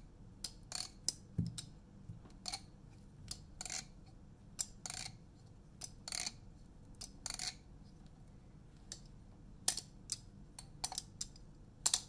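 Plastic Squiddy-U clone balisong trainer being flipped by hand: scattered light clicks and taps, irregular and sometimes in quick little clusters, as the handles and blade knock together. The clicks are kept quiet by its silencer mod; the taps are the expected tap of the handles meeting the blade.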